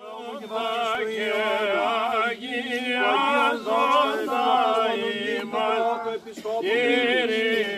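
Greek Orthodox Byzantine chant sung by male voices: an ornamented melodic line over a held low note, starting suddenly and stopping near the end.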